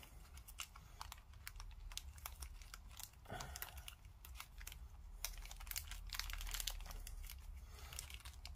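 Thin clear plastic bag crinkling and crackling in the fingers as it is worked open, a run of small irregular clicks and rustles.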